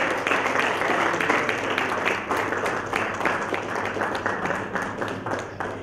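Audience applauding in a hall, a dense patter of many hands clapping that slowly thins and fades towards the end.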